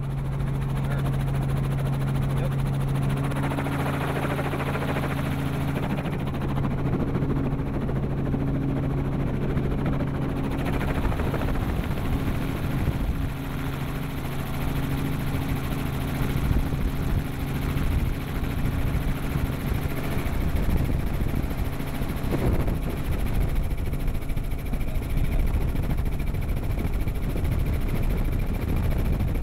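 Helicopter engine and rotor heard from inside the cabin: a steady low hum for about the first ten seconds, then a broader, rougher rumble as the helicopter lifts off and flies.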